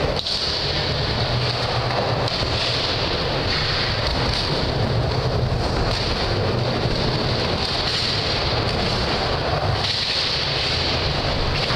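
Skateboard wheels rolling back and forth on a wooden mini ramp: a steady rumbling hiss that swells and eases every few seconds.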